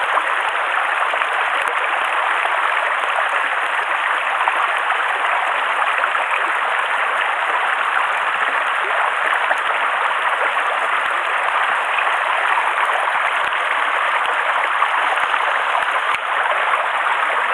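Mountain stream rushing over a rocky bed: a steady, even rush of water.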